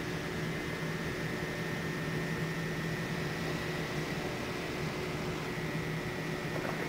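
Steady mechanical hum and hiss of an indoor ice rink's room tone, level throughout, with a faint high thin tone over it.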